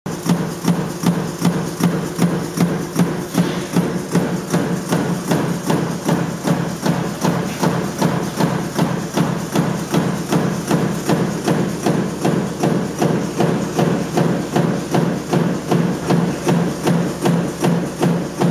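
Mechanical punch press stamping a coil-fed metal strip in continuous strokes, a sharp metallic strike about twice a second over the steady hum of the press's motor and flywheel.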